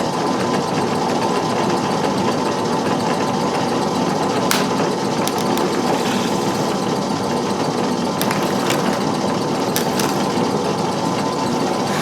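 Drill press motor running steadily, a constant hum with a few light clicks.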